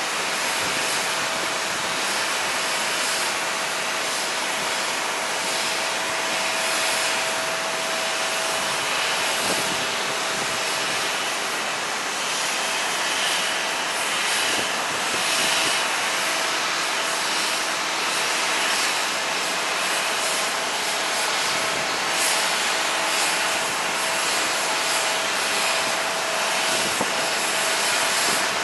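Jet airliner engines running, a steady rushing noise with a thin, steady whine through roughly the first ten seconds.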